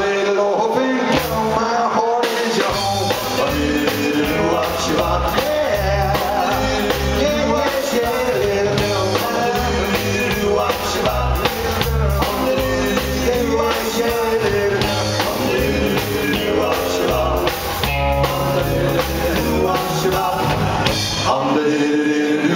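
Live rock and roll band playing: electric guitar, slapped upright double bass and drum kit over a steady beat.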